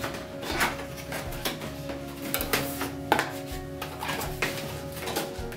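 Cardboard box being opened by hand: flaps pulled free and folded back, with scattered sharp taps, scrapes and rustles, one crisp knock about three seconds in. Quiet background music plays underneath.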